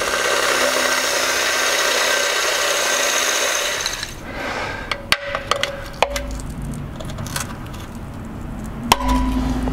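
Cordless drill running, drilling out a seized Phillips screw in an outboard's trim tab, steady for about four seconds and then stopping. Scattered metal clicks and clinks of tools and parts follow.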